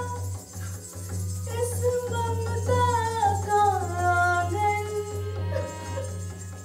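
A woman singing a sliding, ornamented melody into a microphone, accompanied by a harmonium holding steady notes underneath.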